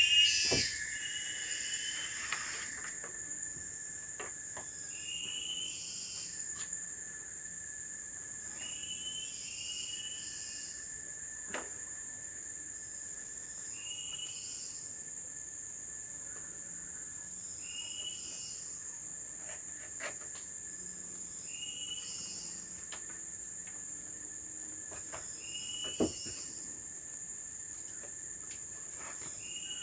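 Steady high-pitched drone of tropical forest insects, with a two-part animal call repeating about every four seconds: a short higher note, then a held lower tone. A few sharp knocks fall in between, the loudest about 26 seconds in.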